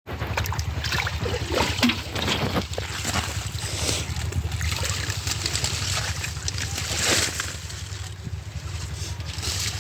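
Water splashing and sloshing in a few separate strokes over a steady low rumble.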